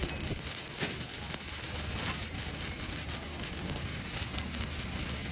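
TIG welding arc burning: a steady hiss with fine crackling over a low electrical hum.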